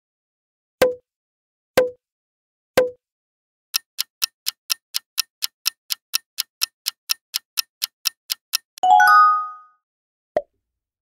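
Quiz-show sound effects: three short pops about a second apart, then a countdown clock ticking about four times a second for some five seconds. A bright chime follows, marking the correct answer, and one short pop near the end.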